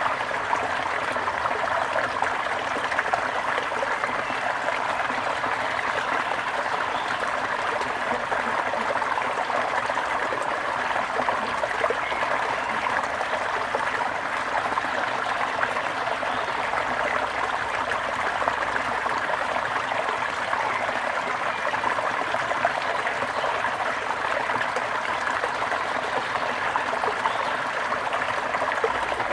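Stream of water trickling steadily.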